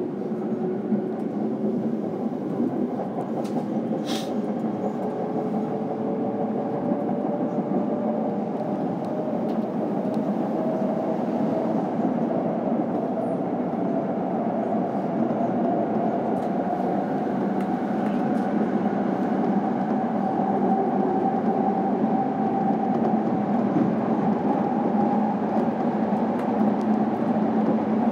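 Electric commuter train heard from inside the car as it pulls away and gathers speed: the traction motors' whine rises in pitch, then rises again after about ten seconds, over running noise that grows slowly louder. A single sharp click sounds about four seconds in.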